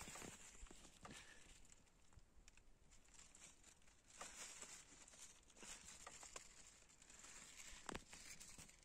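Near silence: faint outdoor ambience with a few soft scattered clicks and rustles.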